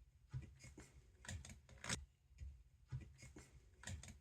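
Faint, irregular short scraping strokes, roughly one or two a second, from hand work on the metal parts of a blower motor.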